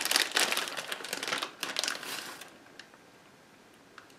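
Plastic package of shredded mozzarella crinkling and rustling as the last of the cheese is shaken out and spread by hand. The crackling stops about two and a half seconds in, leaving only faint room tone.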